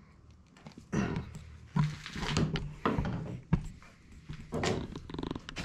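Short strained grunts of effort and knocks of a Phillips screwdriver as it is forced against a tight stock bolt deep inside a wooden shotgun stock, with tools clunking on a table near the end.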